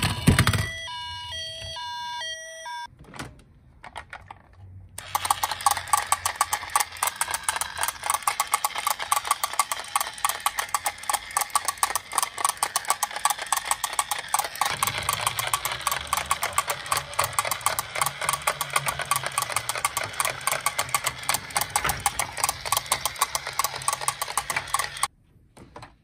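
A toy ambulance lands with a knock, followed by a short jingle of stepped electronic beeps. Then a fast, steady mechanical ticking from the toy cars being handled runs for about twenty seconds and cuts off suddenly near the end.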